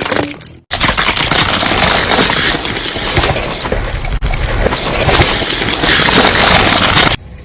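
Dense crunching and crackling under a car's tyre, starting abruptly about a second in and cutting off sharply near the end.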